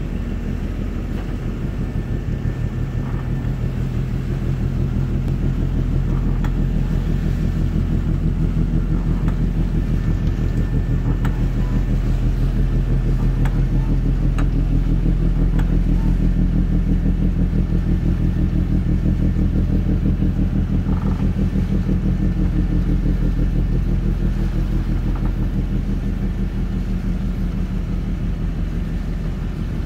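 A boat engine running at a steady speed: a low drone with a fast, even pulse, swelling slightly toward the middle.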